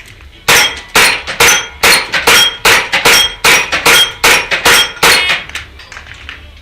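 Airsoft open race gun firing a rapid string of about a dozen shots, roughly two a second, each BB striking a steel plate with a sharp metallic clang and brief ring.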